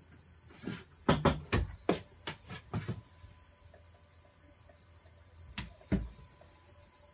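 A quick run of about eight knocks and thumps in the first three seconds, and one more thump about six seconds in, over a faint steady high-pitched whine.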